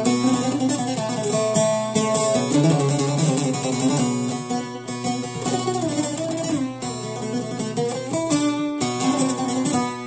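Long-necked bağlama (saz) played as an instrumental melody: plucked notes with pitch slides between them, over a steady low drone.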